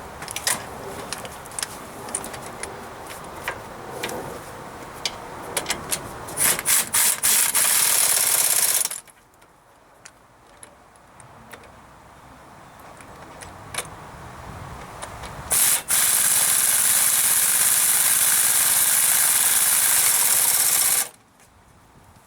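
Metal tool clinks and rattles, then two long bursts of loud, steady compressed-air hiss, the second lasting about five seconds and cutting off sharply.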